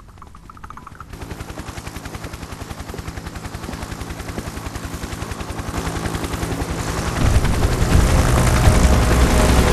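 Helicopter rotor beating rapidly, growing steadily louder as the helicopter comes in to land, with a heavy engine rumble joining about seven seconds in.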